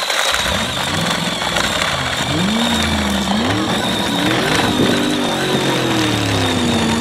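Small battery-powered ride-on quad driving on asphalt: a steady high motor whine, with a lower engine-like drone that rises and falls in pitch.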